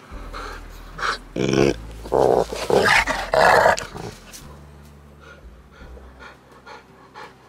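Saint Bernards play-growling as they wrestle: a run of five loud, rough growls in the first four seconds, then quieter quick panting.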